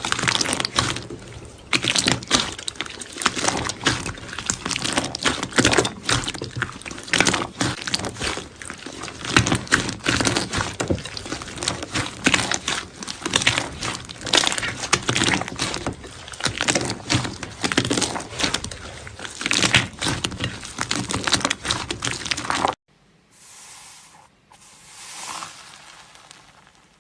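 Slime being squeezed and kneaded, with dense crackling and popping. It cuts off suddenly near the end, leaving much quieter sound.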